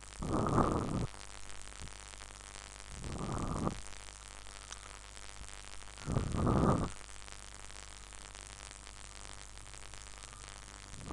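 Steady hiss and low hum from a recording microphone, broken three times by a short rush of noise lasting about a second, roughly three seconds apart.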